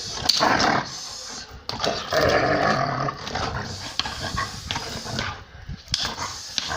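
German shepherd in guard-dog training, growling in rough, loud bursts.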